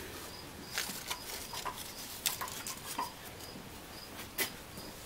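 Scattered clicks and knocks of a tensioned tie-down strap being released and its hooks pulled off the engine. A cricket chirps steadily behind it, a short high chirp about twice a second.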